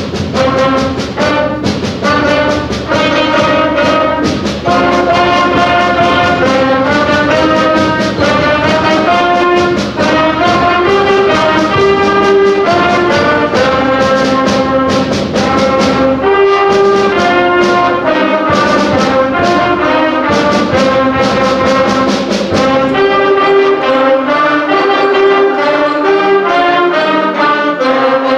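Middle-school band playing, alto saxophones among the winds, over a steady drum beat.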